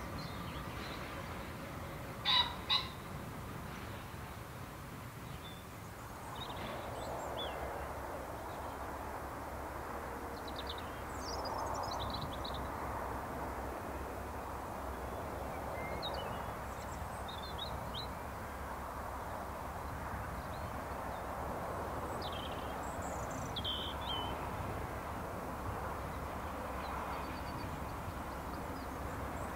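Wild birds singing and calling, with scattered short chirps and trills throughout and one loud two-note call about two seconds in, over a faint steady background noise.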